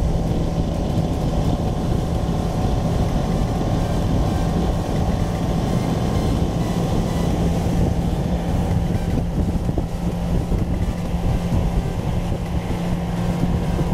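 Outboard motor of a small fishing boat running steadily at cruising speed, a constant low drone.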